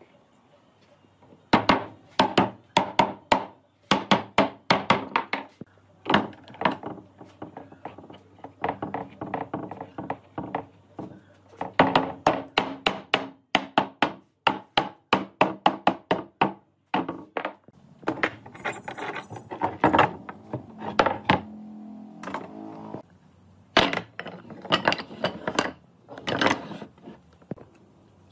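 Wood being struck over and over with a hand tool: runs of sharp knocks, several a second, broken by short pauses.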